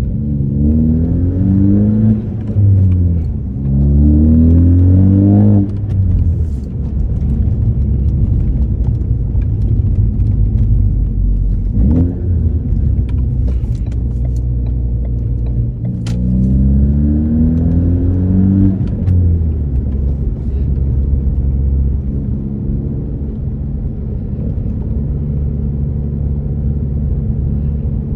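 2018 Ford Focus ST's turbocharged 2.0-litre four-cylinder with an AWE axle-back exhaust, pulling hard: the engine note rises through one gear, drops at a quick upshift, and rises again before the driver lifts off about six seconds in. It then drones at a steady cruise, with a second rising pull through two gears about halfway and a new pull starting near the end.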